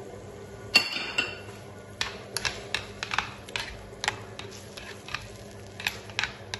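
A spoon stirring onion and grated tomato in a glazed clay tajine, knocking against the clay in irregular sharp clinks, about two a second, with the first and loudest about a second in. Under it runs a steady low hum.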